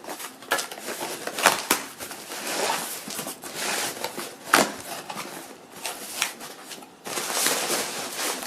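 Cardboard box and packaging being opened by hand: irregular rustling, scraping and crinkling, with a few sharp clicks and snaps, the loudest about one and a half and four and a half seconds in.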